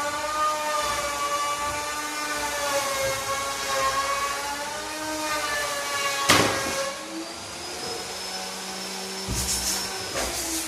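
Electric power tool motor running with a steady whine that wavers slightly in pitch. About six seconds in there is a sharp knock, after which it runs on at a lower pitch with some hiss.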